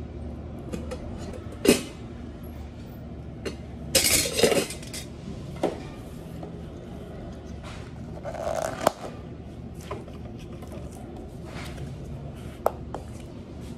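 A handful of sharp clicks and taps from a spoon, a plastic cup and a plastic dome lid being handled on a stainless steel counter while a frappe is finished, with a short scrape-like rustle about two-thirds through, over a steady low machine hum.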